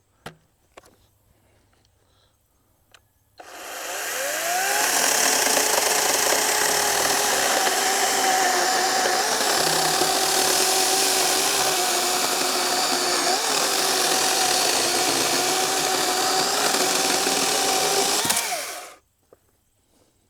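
Greenworks 40-volt G-Max battery chainsaw spinning up about three seconds in and cutting through a log for about fifteen seconds. It runs with a steady high tone over the chain's rasp, then winds down and stops near the end. A few faint clicks come before the cut.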